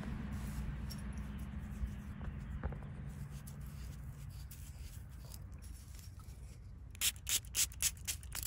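Fingers rubbing soil off a freshly dug copper coin, then a hand spray bottle squirting water onto it in quick short bursts, about three a second, starting about seven seconds in.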